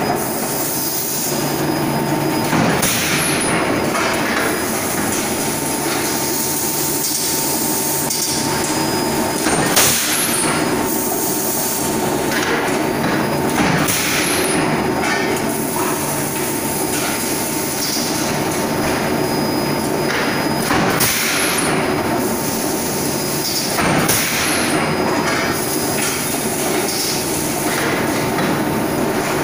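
Steady din of a large forging press and its shop machinery with a constant hum, broken every few seconds by a sharp strike as the press works hot metal.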